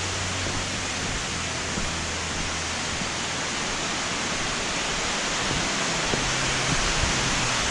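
Steady rush of falling water, an even roar without breaks, from a waterfall or heavy rain nearby.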